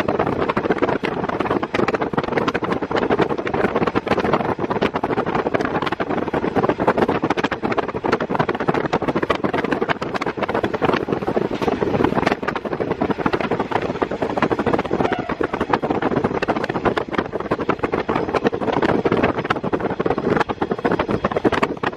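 KiHa 48 diesel railcar running, heard from inside the car through an open window, with steady wind noise over the engine and wheels.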